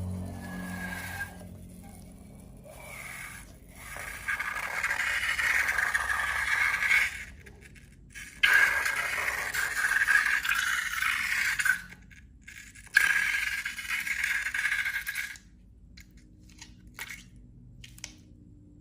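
Scraping in three long strokes of two to three seconds each, followed by a few light clicks.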